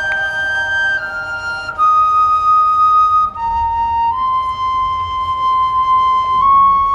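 Marching band music: a slow solo melody of long held notes, flute-like, stepping down in pitch over the first few seconds and then rising slightly.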